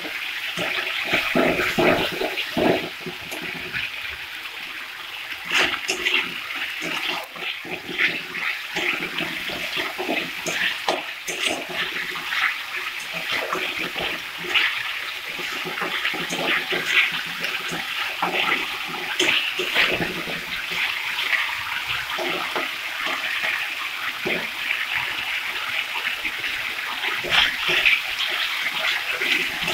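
Masala paste with chopped tomato sizzling in hot oil in a metal kadai. A spatula scrapes and knocks against the pan many times as it is stirred. The masala is being fried down until the oil separates.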